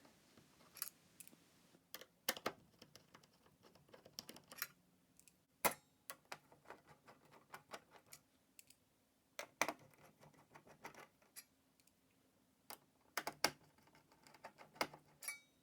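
Irregular small clicks and taps of a Phillips screwdriver working out the screws that hold an all-in-one computer's stand, with a few louder knocks of the hardware being handled.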